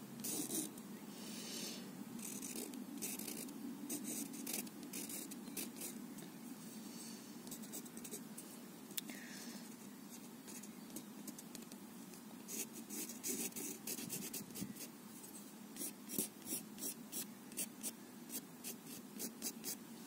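An inking tool scratching over watercolour paper in many short strokes, coming quicker and denser in the second half.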